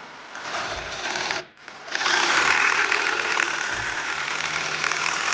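A small power tool running with a fast buzzing rattle, in two runs: a short one, then after a brief pause at about a second and a half, a longer, louder one.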